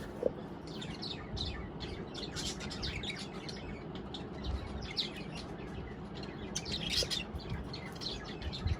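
Budgerigars chirping: many short, quick chirps that come in clusters, busiest about a second in and again around seven seconds, over a steady low background noise. A brief sharp click sounds just after the start.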